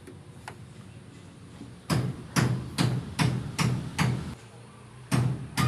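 A run of regular knocks, about two and a half a second, starting about two seconds in, with another knock near the end.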